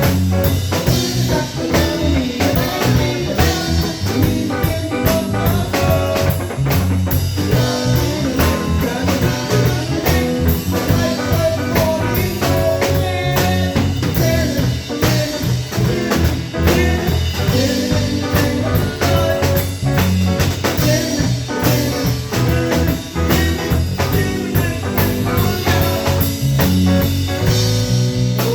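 Live band playing a blues-rock jam: electric guitar, bass and drum kit, with steady drum hits throughout.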